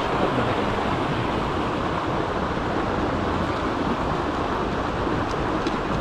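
Mountain stream rushing steadily over rocks.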